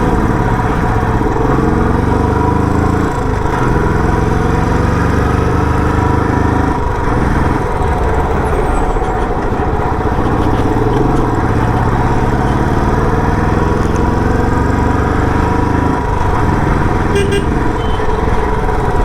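Royal Enfield Bullet 350's single-cylinder engine exhausting through its stock silencer while riding. The pitch climbs under acceleration and drops back at gear changes, about three seconds in, near seven seconds and again near sixteen.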